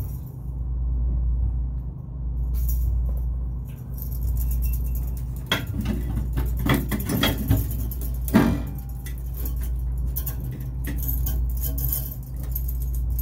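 Light metallic clinks and rattles of a copper thermostatic expansion valve and its coiled capillary tube being handled and fitted into an evaporator coil, clustered between about five and a half and eight and a half seconds in. Under them runs a steady low hum that swells and fades about every two seconds.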